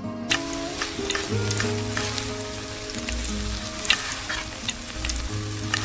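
Food sizzling and crackling as it fries, with a dense hiss and scattered sharp pops, under background music.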